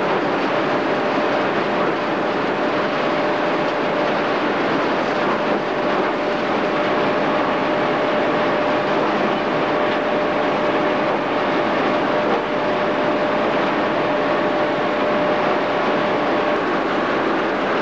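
Processing machine running steadily with loose fibrous material tumbling and falling inside it. It makes an even mechanical rush with a faint constant hum under it.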